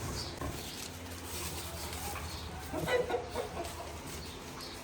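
Chickens clucking: soft short calls, with a louder cluster of clucks about three seconds in.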